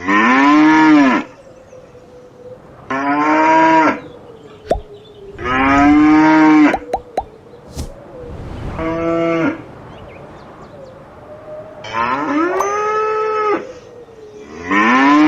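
Cattle mooing: six long moos, each about a second long and rising then falling in pitch, coming every two to three seconds, with a few faint clicks in the gaps.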